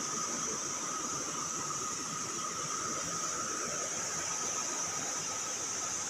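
Steady riverside ambience: an even hiss of running water with two constant high-pitched tones over it.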